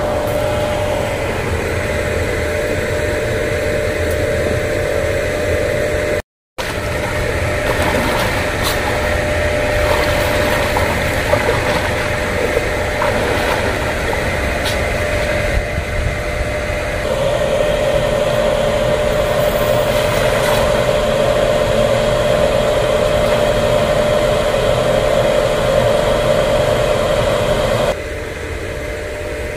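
A machine running steadily: a constant engine-like drone with a steady hum that sits over a rushing noise. It gets slightly louder about 17 seconds in.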